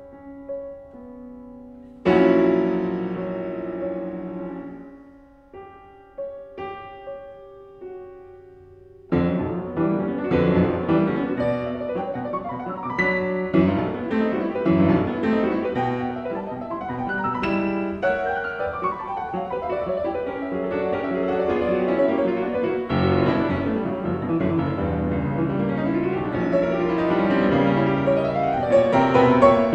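Solo piano music: a loud chord about two seconds in, a few sparse notes, then fuller, busier playing from about nine seconds on.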